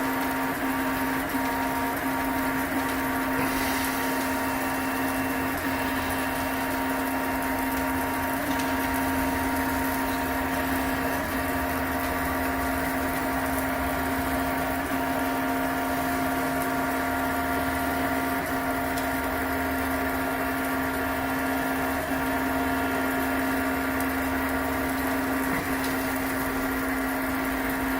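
CoreXY 3D printer running: a steady hum and whine of several constant tones, with faint light ticks.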